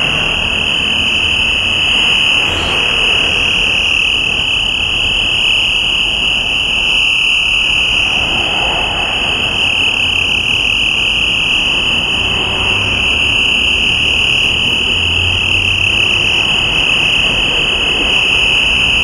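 A loud, unbroken high-pitched tone, like an alarm or test beep, held at one pitch over the noise of street traffic as cars pass.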